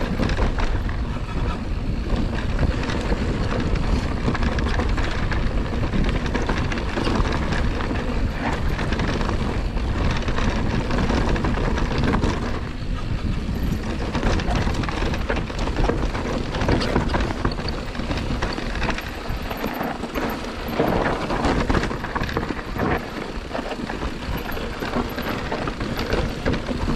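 Electric mountain bike riding down a rough, rocky dirt trail: tyres grinding over dirt and rock and the bike rattling with many quick knocks over the bumps, with steady wind rumble on the microphone.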